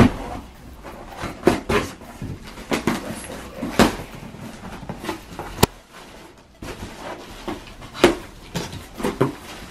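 Scissors slitting the packing tape on a cardboard box, then the cardboard flaps pushed open and tissue paper rustling inside, with scattered scrapes and sharp knocks of cardboard.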